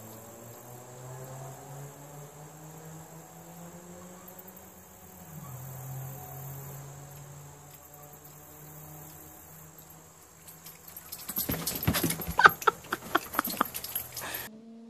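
Steady high chirring of insects over a low hum, then about eleven seconds in a loud, ragged few seconds of animal scuffle noise as dogs and a cat clash, cutting off abruptly.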